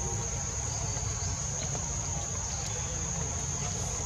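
Steady high-pitched insect drone, with a low rumble underneath.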